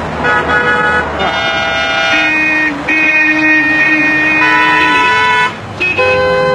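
Car horns honking at pedestrians crossing in front of the traffic: several long, steady blasts at different pitches one after another, with a short break about five and a half seconds in, over the low rumble of cars.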